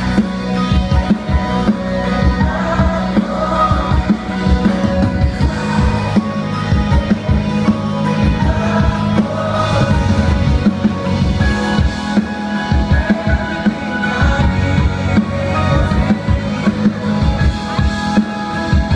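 A live worship band playing: drums, bass and acoustic guitars with singing, heard from within the audience.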